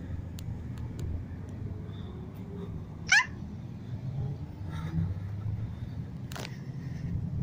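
Steady low rumble of road traffic, with one short, sharp, upward-sweeping squeal about three seconds in that stands well above it.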